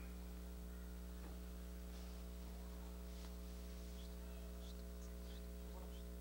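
Steady low electrical mains hum, with a few faint knocks and rustles as someone sits down in a chair.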